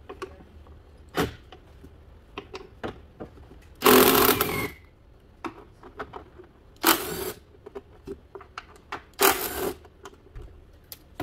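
Cordless drill/driver spinning three times in short bursts, the longest first, as the engine cover bolts are run out, with light clicks and taps of bolts and tool being handled in between.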